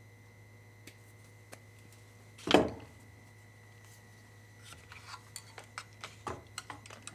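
A hand tool set down on a workbench with one sharp clunk about two and a half seconds in. Near the end comes a run of light, irregular clicks and taps as hands work at the multimeter's circuit board. A faint steady hum runs underneath.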